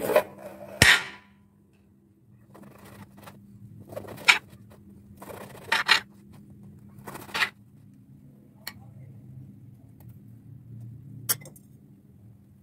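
A knife slicing a green bell pepper and crusty bread on a glass cutting board. About a second in there is a crunchy cut and a sharp knock of the blade against the board. Then come about half a dozen rasping cuts through the bread crust, and two sharp clicks near the end.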